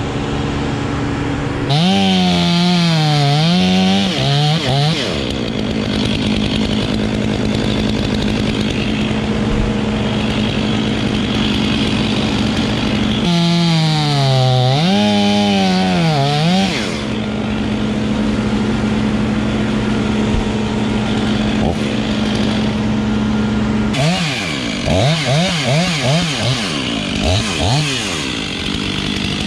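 Husqvarna T540i XP battery-powered top-handle chainsaw running and cutting wood. Its motor whine dips and recovers over and over in three spells, about two seconds in, about thirteen seconds in and near the end, with steady running between.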